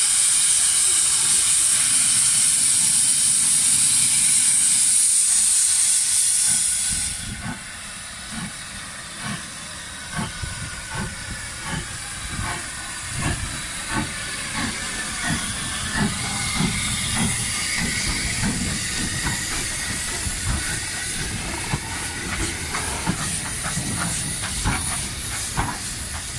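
Steam hissing loudly from the L&YR 0-6-0 saddle tank locomotive No. 752 for about seven seconds, then cutting off suddenly. After that come quieter, irregular knocks and clanks as the engine moves slowly along the platform.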